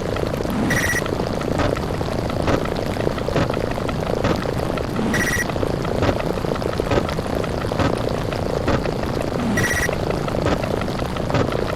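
Sound effects played in very rapid overlapping succession, heard as a dense, continuous rumbling roar full of quick clicks, with loud explosion effects among them. A short high beep cuts through three times, about every four and a half seconds.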